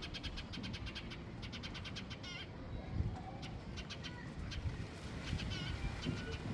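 A cat meowing, with small birds chirping in quick runs of short high notes.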